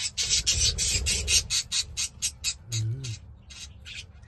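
Young budgies at the nest-box hole giving fast rasping calls, about six a second, that thin out and fade near the end as they feed on spinach. A short low hum from a person's voice comes about three seconds in.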